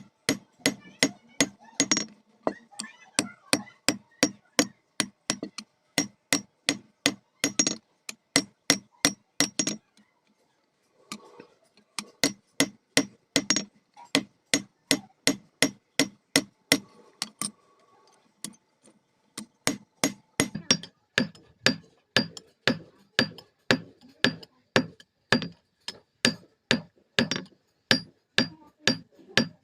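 Blacksmith's hand hammer striking iron on an anvil in forging, a steady run of sharp ringing blows about three a second. The hammering stops briefly about ten seconds in and again near eighteen seconds, then resumes.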